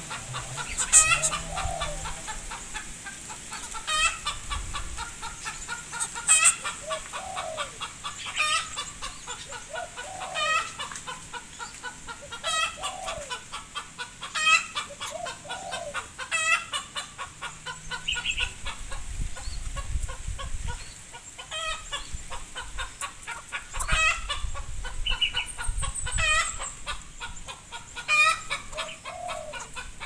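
Domestic chickens clucking, a call every two seconds or so.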